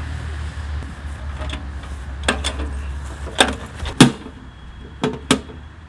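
Metal knocks and clanks, about five of them and loudest about two-thirds of the way through, as a homemade ammo-can wood stove with its chimney pipe is handled and set down. Low road-traffic rumble underneath, fading after the first second.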